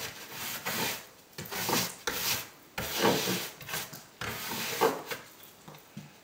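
A stiff root-fibre scrubbing brush scrubs in quick, irregular strokes over the grout joints of a gypsum imitation-stone wall. It brushes off excess grout and cleans out the joints. The strokes stop about five seconds in.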